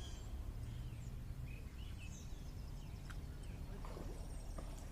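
Low wind rumble on the microphone with scattered bird chirps and whistles, and a few faint clicks near the end.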